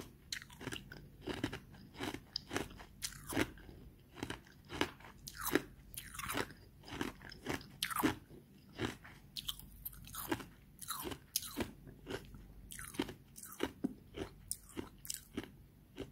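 A person chewing mouthfuls of ice chips: a close, continuous run of crisp crunches, two or three a second.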